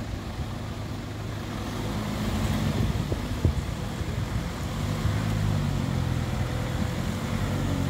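Motor vehicle engine running, getting louder about two seconds in, with a couple of short knocks a little after three seconds.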